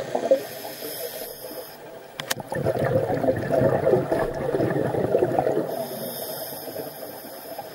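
Scuba regulator breathing heard underwater: a quiet hissing inhalation, then a long rush of exhaled bubbles from about two and a half seconds in, then another hissing inhalation near the end. There is a single sharp click just before the bubbles.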